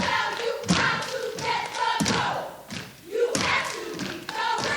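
Step team stepping: sharp stomps and claps, about one a second, with voices shouting a chant in unison over them.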